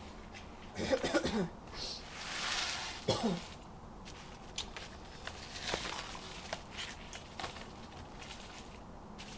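A couple of short coughs, about a second and about three seconds in, then scattered light knocks and rustles of things being moved about.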